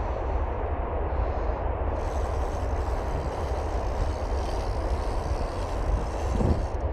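Steady roar of river water pouring through the open gates of Kaw Dam, mixed with wind buffeting the microphone. There is a short low bump near the end.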